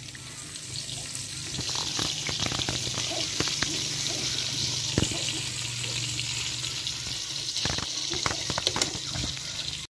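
Vietnamese spring rolls (nem rán) frying in a pan of hot oil: a steady sizzle with scattered crackles and pops, and a run of sharper pops near the end.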